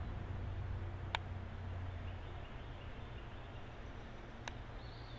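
Two faint, sharp clicks about three seconds apart from a handheld infrared thermometer's trigger as it is aimed at a rifle suppressor sleeve, over quiet outdoor background with a low hum that fades out partway through.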